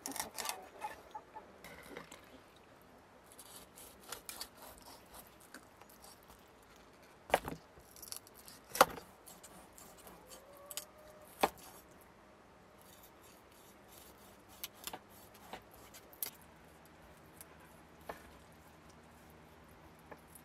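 A knife cutting through fish on a wooden chopping board at the start, then scattered sharp clicks and knocks, with three loud single knocks in the middle about a second and a half apart.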